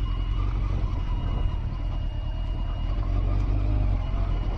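Honda CBR900RR Fireblade's inline-four engine running at low revs as the motorcycle rolls slowly, under a heavy low rumble, with the engine note rising a little near the end.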